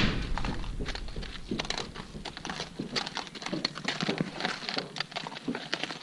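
Saddled horses shifting about: scattered light knocks, clicks and rustles of hooves and tack, with no steady rhythm.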